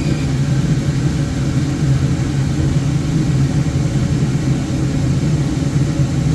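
Woodturning lathe running with a steady low hum while a bowl is being hollowed out on it.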